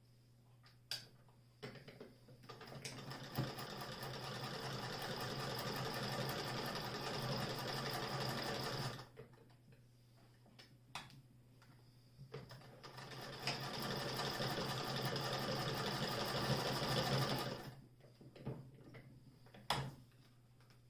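Singer 28K hand-crank vibrating-shuttle sewing machine sewing in two runs of several seconds each, picking up speed at the start of each run and stopping sharply. Single clicks come before, between and after the runs.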